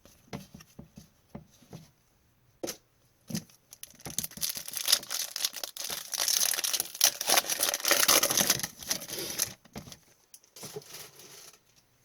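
A few light clicks and taps of cards being handled, then a hockey card pack wrapper torn open and crinkled for about five seconds, starting about four seconds in, with a shorter crinkle near the end.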